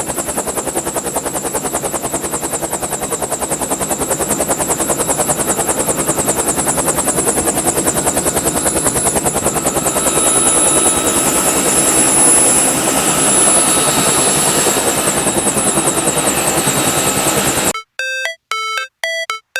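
Helicopter rotor chopping steadily as it passes overhead, growing louder toward the middle, then cutting off abruptly near the end. A short chiming electronic tune follows.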